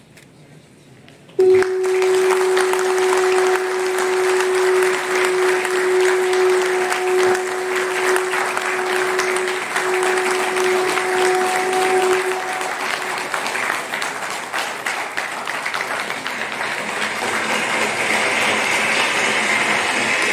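Audience applauding, starting suddenly about a second and a half in and continuing throughout. A single steady held tone sounds over the clapping for about eleven seconds, with a few brief breaks, before fading out.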